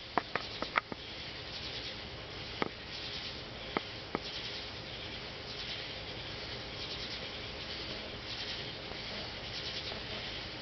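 Insects chirping in a continuous chorus of high, pulsing bursts, with a few sharp clicks in the first four seconds.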